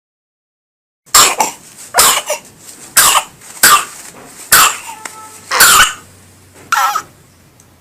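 A baby coughing: a run of about seven short, loud coughs over some six seconds, starting about a second in.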